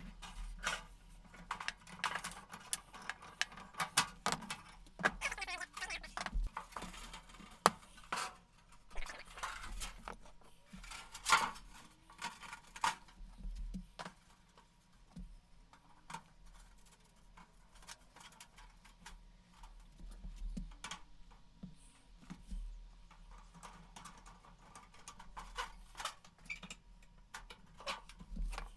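Steel C-clamps being fitted and tightened on a channel-iron forming die, pressing a stiffening bead into the edge of a sheet-metal fuel tank: irregular metallic clinks, clicks and knocks. They are busier in the first half, with a sparser stretch in the middle.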